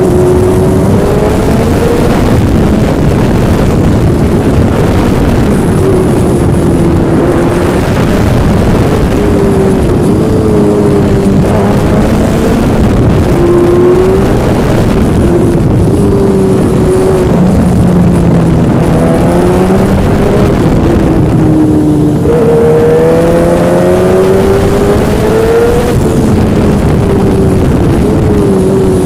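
Yamaha engine running under way, its pitch rising and falling with the throttle, under a constant rush of wind and travel noise.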